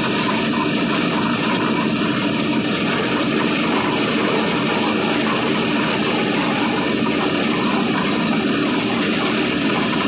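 Lift concrete mixer machine running, a steady mechanical drone with a few constant tones that holds at an even level throughout.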